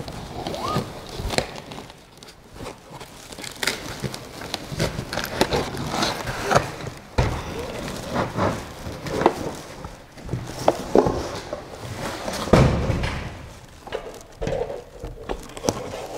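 Unpacking handling noise: foam packing and cardboard rustling and scraping, with scattered knocks as a 3D printer's base unit is lifted out of its box. A heavier thump comes about three-quarters of the way in.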